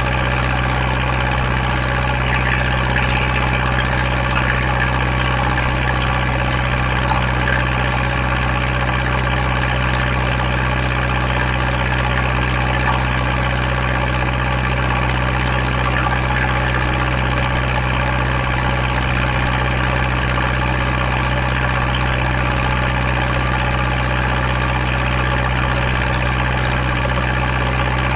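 Zetor 7011's 3.6-litre four-cylinder diesel engine running at a steady speed, heard from the driver's seat just behind the upright exhaust stack.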